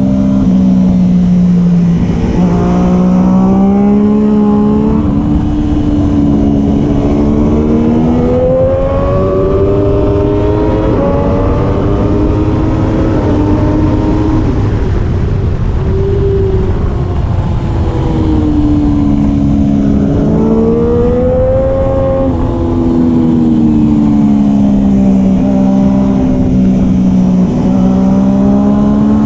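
Triumph Daytona 675R's three-cylinder engine at racing speed, its pitch climbing in steps through upshifts and falling back on downshifts several times.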